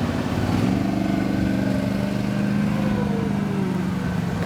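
Powerboat engines running through the inlet, a steady engine drone with one tone sliding down in pitch past the middle, as a boat goes by.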